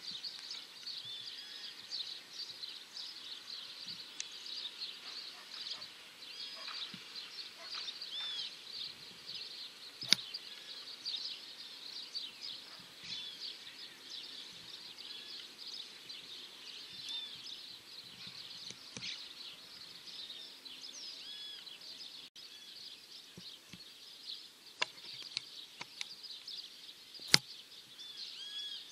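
Many small birds chirping together, a dense run of short overlapping chirps with no break. Two sharp clicks, about ten seconds in and near the end, stand out as the loudest sounds, with a few fainter clicks between them.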